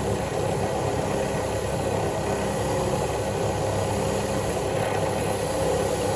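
Motor-driven wire wheel running steadily, brushing rust off a bolt's threads.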